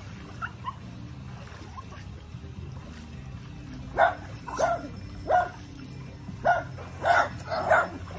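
Small white dog barking: about six short, sharp barks coming in quick succession from about four seconds in.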